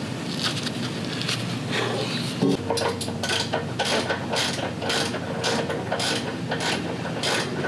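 Hand socket ratchet on an extension and 18mm deep socket clicking in an even run, about three clicks a second, as a bumper-to-frame bolt is turned out by hand. A knock comes about two and a half seconds in, before the steady clicking begins.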